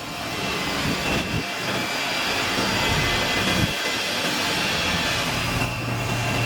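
Diamond loop wire saw cutting machine running steadily: an even mechanical hiss with a thin constant high whine and a low hum underneath.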